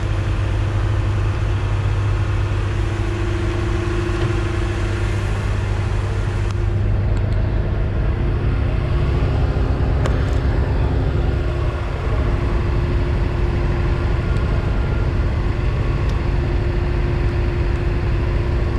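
Truck engine idling steadily close by, an even low hum with a steady tone over it.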